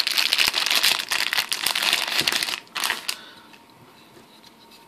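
Crinkly packaging being handled and unwrapped, a dense crackling rustle that stops about three seconds in.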